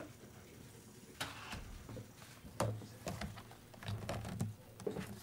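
Camera shutters clicking in quick, irregular bursts, starting about a second in, with a few low knocks and rustles among them.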